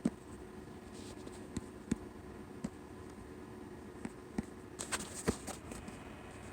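Scattered light clicks and knocks of hands handling a cable and computer hardware, loudest about two seconds in and again near five seconds, over a faint steady hum.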